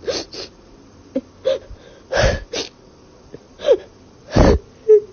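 A person's short breathy vocal sounds, like gasps or stifled laughs, come in about eight quick separate bursts with pauses between them.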